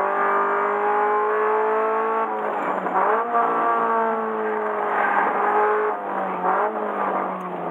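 Subaru BRZ's flat-four engine running hard on a race circuit, its note climbing slowly under acceleration. About two seconds in, and again near six seconds, the pitch drops with a rougher, noisier patch as the revs come down, then it climbs again.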